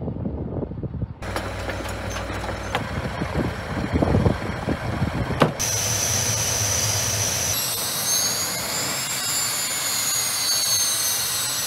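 Sukhoi Su-25 jet's twin turbojet engines running on the ground: a loud rush of engine noise that changes abruptly between shots. About halfway through, a strong high turbine whine comes in, and it then wavers and glides in pitch.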